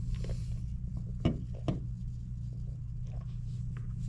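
Mouth sounds of a man drinking from a can of energy drink and tasting it: a couple of sharp mouth clicks about a second in, with a few fainter smacks, over a steady low hum.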